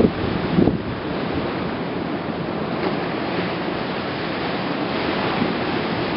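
Steady rushing of wind and harbour water, with wind buffeting the microphone a couple of times in the first second.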